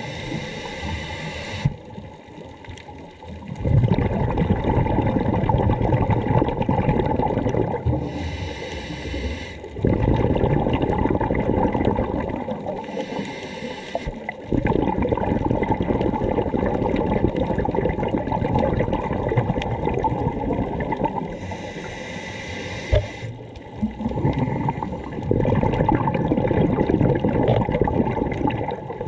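A scuba diver breathing through a regulator, heard underwater: each short hissing inhale is followed by a longer, louder rush of exhaled bubbles. The cycle repeats about four times.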